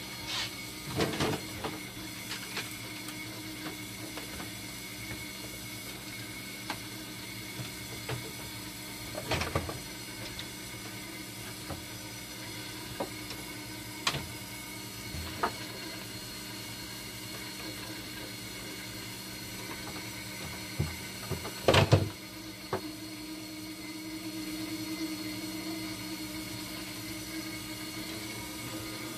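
Steady hum of a dialysis machine, with scattered clicks and knocks as parts inside its open back are handled. A short cluster of louder knocks comes about 22 seconds in, and the hum grows slightly louder after it.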